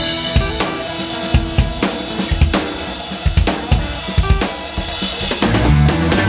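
Background music track led by a drum kit playing a steady beat of kick, snare and cymbals; about five and a half seconds in, a fuller band section with heavy bass comes in.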